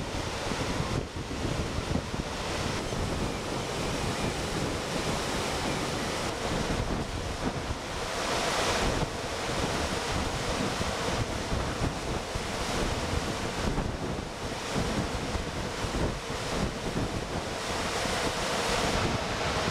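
River water rushing over rocky falls and rapids, a steady hiss, with wind buffeting the microphone.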